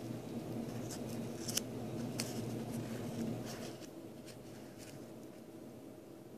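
A tiny folded paper zine being unfolded between fingertips: crisp paper crackles and clicks, the sharpest about one and a half to two seconds in. Under it a steady low hum that drops away a little before four seconds in.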